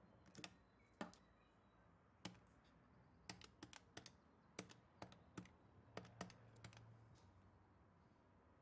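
Faint keyboard keys pressed one at a time, slowly and unevenly, with a quicker run of several presses about halfway through.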